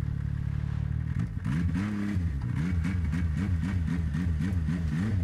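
Snowmobile engine running, steady at first, then from about a second in revved up and down over and over, about three times a second.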